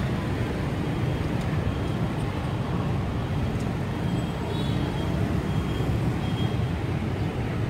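Steady street traffic noise: an even, low rumble of passing vehicles.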